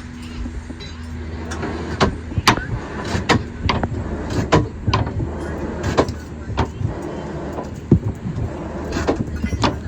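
Blacksmith's hammer striking hot iron on an anvil while drawing out a nail: about a dozen sharp strikes, unevenly spaced, starting about two seconds in, some with a brief ring. A steady low rumble runs underneath.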